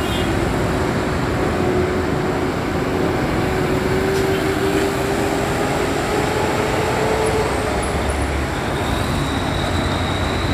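Steady, loud city road traffic with buses and cars passing. A faint engine whine rises slowly in pitch over the first few seconds and then fades.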